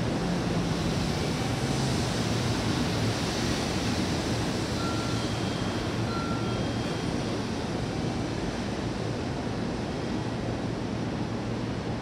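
Toyota Long Pass Express container freight train passing through the station on a far track: a steady rumble of wheels on rail with a low hum underneath, easing slightly toward the end.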